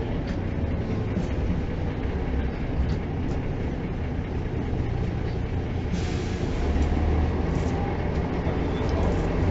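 Inside a Mercedes-Benz O405 city bus on the move: the engine drones low and steady over road rumble, with a few light rattles. There is a brief hiss about six seconds in.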